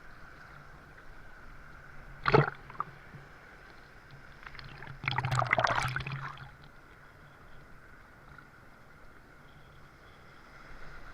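Water splashing and sloshing around a person wading, over a steady wash of water noise. There is one short sharp splash about two seconds in, and a longer, louder bout of splashing about five seconds in.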